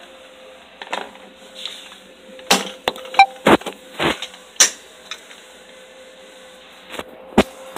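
A phone being handled and bumped close to its microphone: irregular knocks, taps and rubbing, the loudest cluster in the middle, over a faint steady hum.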